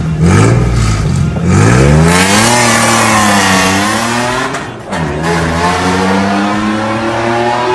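Toyota Land Cruiser LC70 engine revved through an aftermarket exhaust with long headers, a cutout and a rocket muffler. It opens with a couple of quick blips, then a longer rev that climbs and falls away, dips briefly about five seconds in and climbs slowly again near the end.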